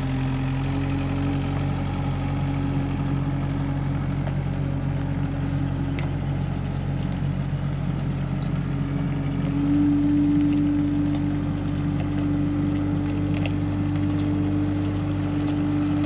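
A farm loader's engine running steadily under light work. About ten seconds in its speed picks up slightly and it gets a little louder.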